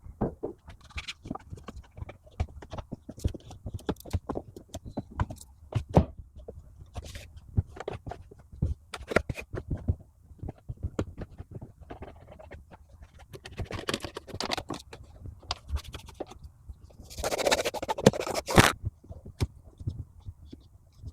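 Scraping, scratching and tapping of hands and cleaning tools working over car interior trim, with scattered sharp clicks throughout. A longer rubbing stretch comes past the middle, and a louder scrubbing burst comes near the end.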